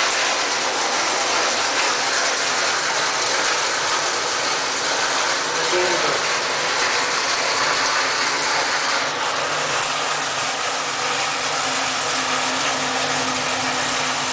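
Steady rushing of water pouring from a solar tube well's pump discharge pipe, with a faint steady low hum under it in the second half.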